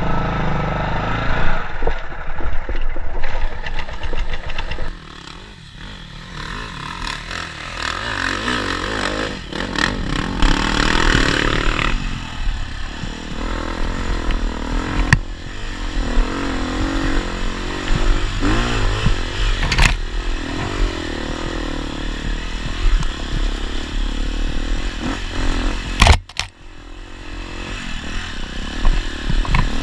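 Dirt bike engine revving up and down as it is ridden over a rough trail, with a couple of sharp knocks near the end.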